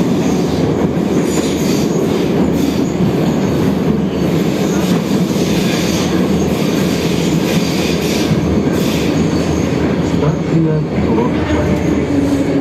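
Minsk Metro train running at speed through a tunnel, heard from inside the car: steady loud rolling and wheel noise on the rails. A low steady tone comes in near the end.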